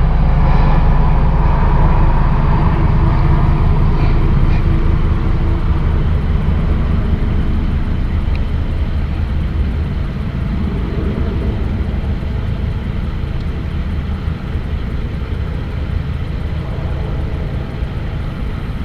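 A motor engine running steadily as a low drone that slowly gets quieter.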